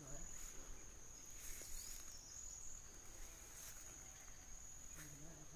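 Insects singing in one steady, high-pitched drone, faint, with a few soft brief knocks from walking and handling.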